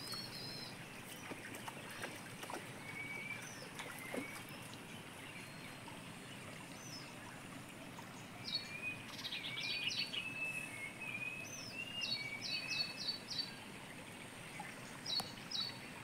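Small birds calling: runs of three to five short, quick high chirps, most of them in the second half, with a few lower whistled notes between them, over a faint steady outdoor hiss.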